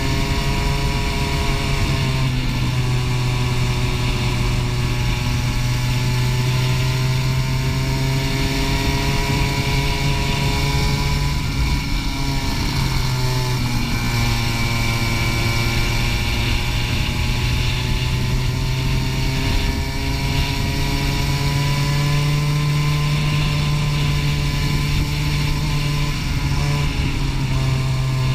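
Racing kart engine heard from onboard, its revs climbing as it accelerates and falling back as it slows for corners, several times over.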